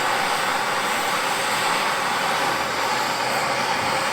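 Handheld gas torch burning, its flame giving a loud, steady hiss while the sheet metal is heated for bending.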